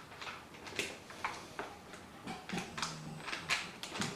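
A series of sharp clicks and light knocks as metal computer case parts are handled and removed, in the way of expansion-slot cover plates being taken out of the case.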